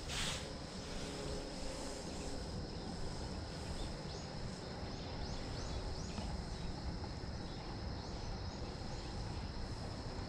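Spinning reel being cranked to retrieve a lure, with a row of light repeated ticks as the handle turns. Under it, a low rumble of wind on the microphone and a steady high-pitched insect drone, with a brief rushing hiss right at the start.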